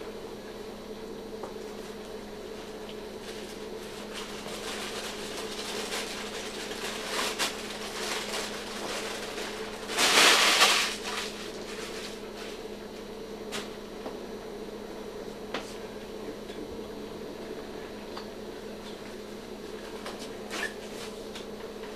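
Steady machine hum with scattered small clicks and handling noises, and a loud rush of noise lasting about a second near the middle.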